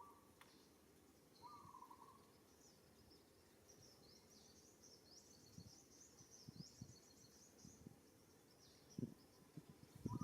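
Faint outdoor ambience with small birds chirping: a quick series of high, falling chirps through the middle, a short buzzy call about a second and a half in, and a couple of low thuds near the end.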